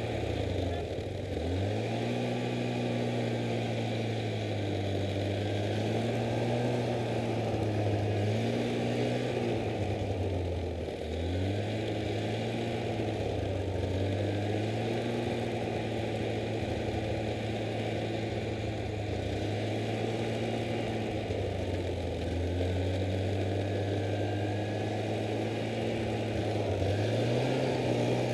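Snowmobile engine running under way through snow, its pitch rising and falling with the throttle. It drops and climbs again about a second in, near the middle and near the end.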